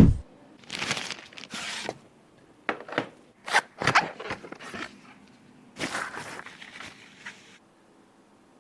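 Objects being handled: stretches of rustling and scraping with several sharp knocks and clicks in between, then quiet for the last second or so.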